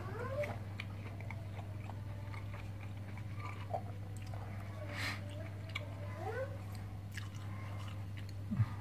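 A person chewing a mouthful of pecel, vegetables in peanut sauce, with small clicks of a spoon against a plate, over a steady low hum; a short sharper crunch about five seconds in.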